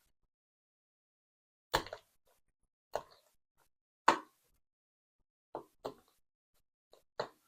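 A handful of sharp, short knocks and clacks of a lock cylinder and metal tools being handled against a hard surface as the lock is taken apart, spaced irregularly about a second apart.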